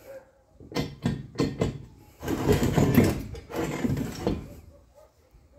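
Steel ratchet jack stand being handled: a few separate metal clicks, then about two seconds of dense clicking and rattling from its ratchet column and lever.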